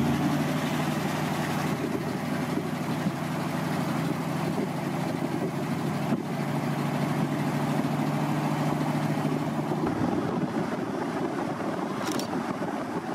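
1970 Ford F-100 pickup cruising on the highway: a steady engine drone mixed with road and wind noise, its pitch shifting slightly about ten seconds in.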